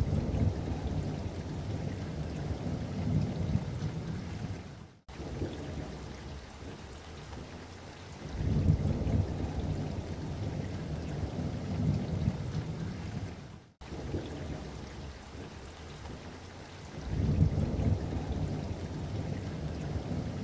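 Rain and thunder ambience: an even patter of rain with low rolling thunder that swells up three times. It drops out abruptly twice, as at edits.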